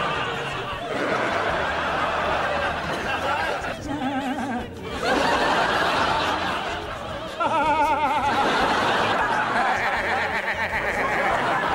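A man's snickering laugh, carried across several short clips that cut abruptly from one to the next.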